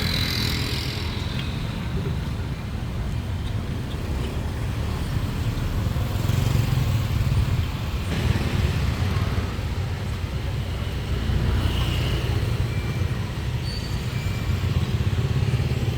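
Street traffic: a steady rumble of passing vehicles that swells and fades a little, with faint voices in the background.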